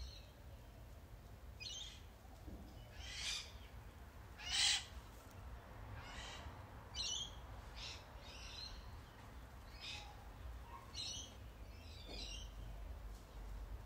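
Garden birds calling with short, high chirps about once a second, one louder than the rest about four and a half seconds in, over a low steady rumble.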